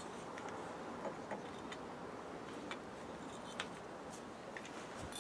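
Faint, irregularly spaced clicks from a torque wrench working a brake caliper bolt as it is tightened to 82 newton metres.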